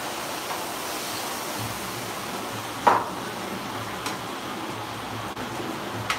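Food sizzling in a frying pan on the stove, a steady hiss, with a sharp knock about three seconds in and lighter clicks about a second later and near the end.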